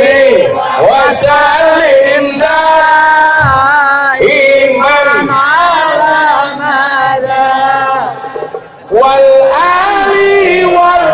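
Amplified sholawat, Islamic devotional chanting, sung in long held notes that waver and slide between pitches. There is a short lull about eight seconds in before the singing picks up again.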